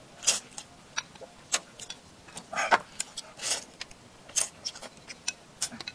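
A person slurping and chewing noodles: a string of short, irregular slurps and wet mouth noises.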